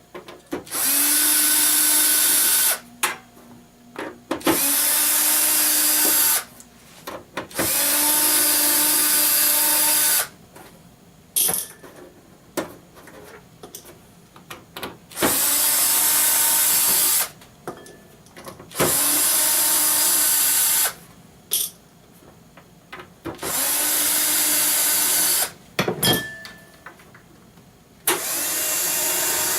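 An electric screwdriver runs in seven bursts of about two to three seconds each, with a steady motor whine, while it backs screws out of the POD XT Live's case. Short clicks of handling fall between the bursts.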